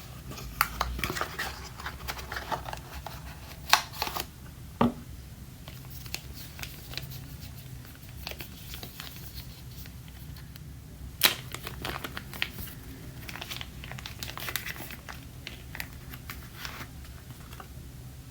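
Camera packaging being handled and opened: crinkling and rustling with scattered light clicks and a few sharper knocks, the loudest about 11 seconds in.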